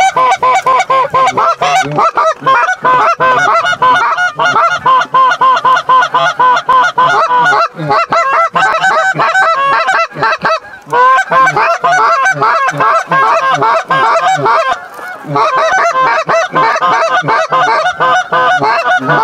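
Canada goose calling: a loud, rapid, nearly continuous run of honks and clucks, breaking off briefly about eleven seconds in and again near fifteen seconds.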